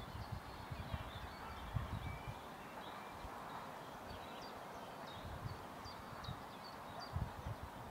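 Waterside ambience: faint small birds chirping in short high notes over a steady rush of flowing water, with irregular low bumps now and then.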